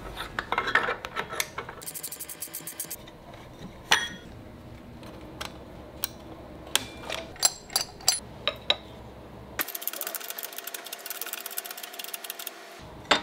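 Metal-on-metal clinks, taps and small knocks from hand assembly of a go-kart's CVT drive clutch and roller chain, in several short cut-together clips.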